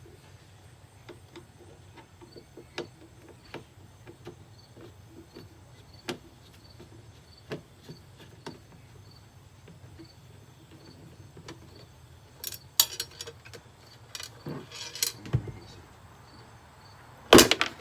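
Scattered light clicks and knocks of things being handled, with a cluster of rattling clicks about twelve seconds in and one sharp knock near the end, over faint, evenly repeated cricket chirps.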